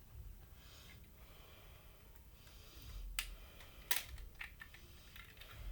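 Lego-brick butterfly knife clicking as it is handled and flipped: a few sharp plastic clicks, the two loudest about three and four seconds in, with lighter taps after.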